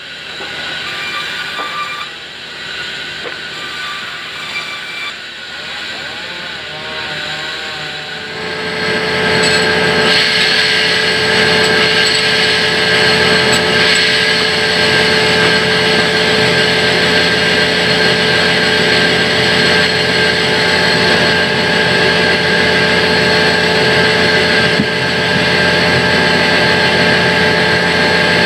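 Sawmill band saw running: a steady mechanical drone with a fixed whine. About eight seconds in it grows much louder and stays loud and even.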